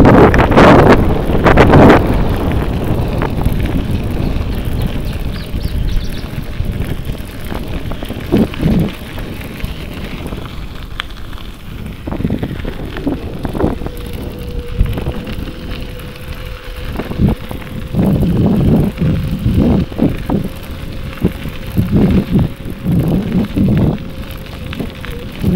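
Bicycle ride: wind buffeting the microphone over the rolling rattle of the tyres and frame. The wind gusts are loudest in the first couple of seconds and then ease, with uneven bumps and thumps later on.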